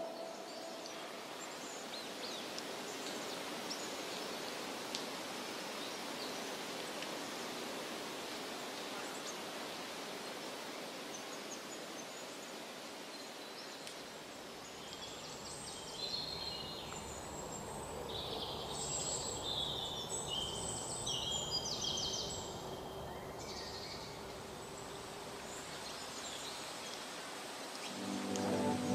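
Tropical forest ambience: a steady soft hiss of the forest, with high-pitched bird calls for several seconds in the middle.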